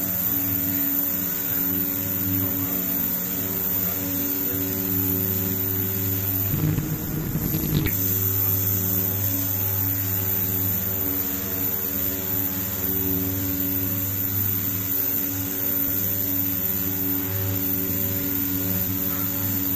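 Steady electrical hum with several overtones. A rougher low noise breaks in for about a second and a half, about seven seconds in.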